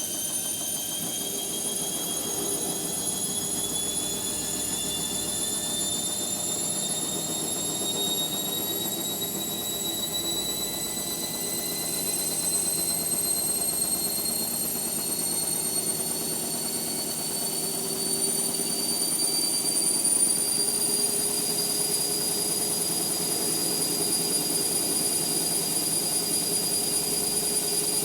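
Indesit MyTime washing machine's drum motor running with a high whine that climbs slowly and steadily in pitch as the drum speeds up in a spin, over a lower steady hum.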